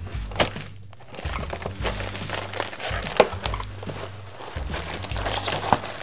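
Crinkling and rustling of handled plastic packaging, with scattered sharp clicks and taps.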